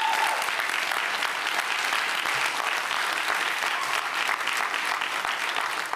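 A crowd applauding: dense, sustained clapping from many hands.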